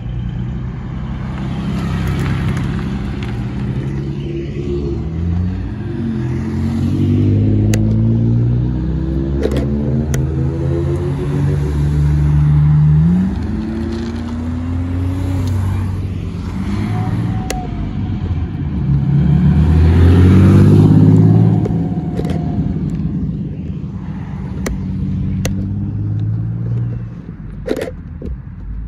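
Sports car engines accelerating away one after another, their pitch climbing and dropping back at each upshift through the gears. The loudest pass comes about twenty seconds in.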